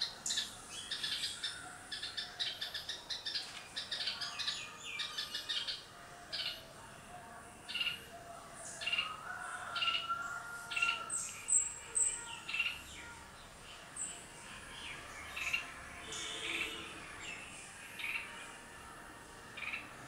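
Red-whiskered bulbul singing: short whistled notes and phrases repeated with gaps, with one longer held whistle near the middle. A fast run of high chirps fills the first several seconds.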